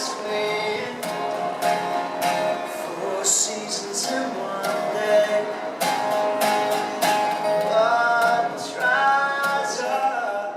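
Acoustic street music: a strummed guitar with a sustained melody line over it.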